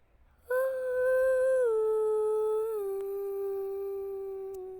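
A long, drawn-out voice-like 'aaah', held on one steady note that steps down in pitch twice before cutting off.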